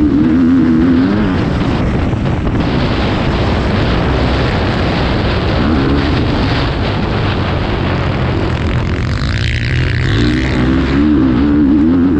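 Motocross bike engine under load on a ride, its pitch wavering up and down with the throttle near the start and again near the end, over a loud, steady rushing noise.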